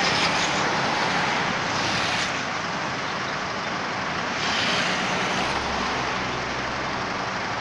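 Steady road traffic noise: engines running and vehicles passing, with a low engine rumble coming in about five and a half seconds in.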